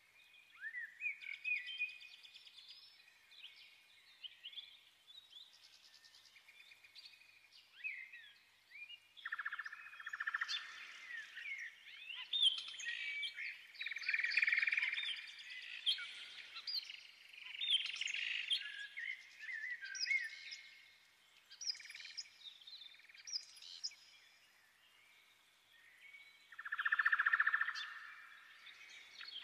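Birds singing, a busy run of short chirps, whistled glides and trills, swelling louder through the middle and again near the end.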